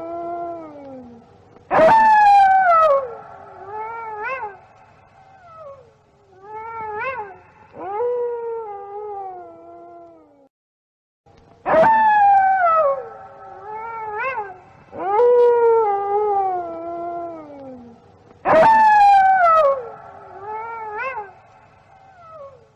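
Wolves howling: long howls that slide down in pitch, overlapped by shorter rising-and-falling calls. About ten seconds in the howling breaks off for a second of silence, then the same run of howls starts over.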